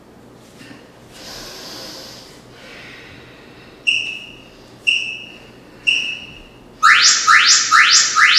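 Electronic interval-timer countdown: three short beeps about a second apart, then a quick run of four rising chirps marking the start of the work interval.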